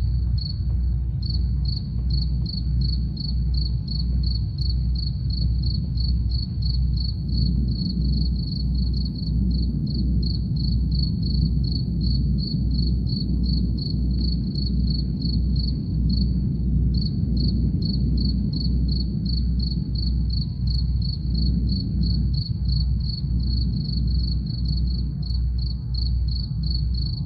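Crickets chirping in a fast, even rhythm, about three chirps a second, over a steady low drum pulse and a faint sustained drone.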